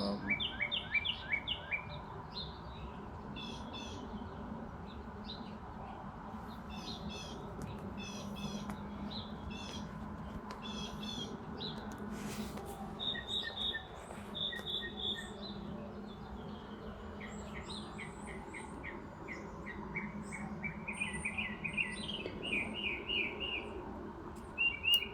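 Several songbirds chirping and singing back and forth: quick runs of repeated short notes, trills and a few held whistled notes, with a rising run of chirps near the end. A faint steady low hum lies underneath.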